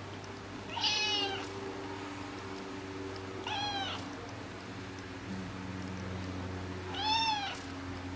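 Persian kitten meowing three times: short, high mews a few seconds apart, each rising then falling in pitch.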